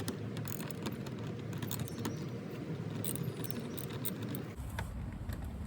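Light metallic clicks and clinks of hand tools and fasteners being handled, over a steady low rumble that gets heavier about four and a half seconds in.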